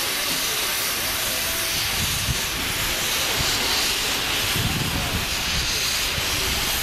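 Steam locomotive letting off steam: a loud, steady hiss throughout, with faint crowd chatter underneath.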